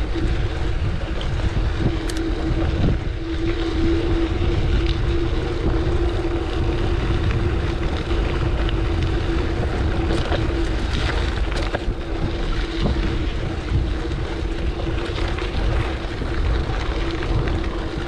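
Wind buffeting the microphone on the move, with a steady hum and a few faint clicks.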